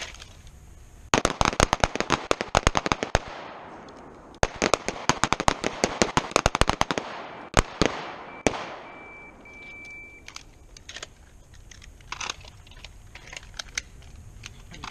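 Rapid, overlapping pistol fire from several shooters on a firing line, in two volleys about a second apart, the gap being the switch from strong hand to support hand, with two late shots after. An electronic range-timer beep follows a little after the shooting.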